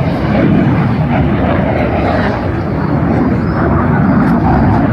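Loud, steady jet roar of a Red Arrows BAE Hawk T1 display jet flying past overhead.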